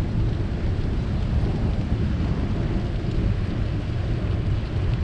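Wind buffeting the microphone of a camera riding on a moving bicycle: a steady low rumble with no clear events.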